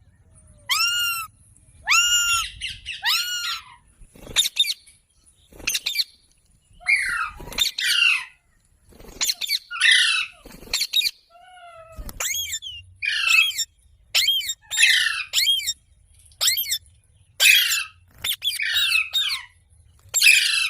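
Rose-ringed parakeet (Indian ringneck) calling repeatedly: a few clear, arched calls at first, then a run of harsh, rasping squawks in quick succession, with a few sharp clicks in between.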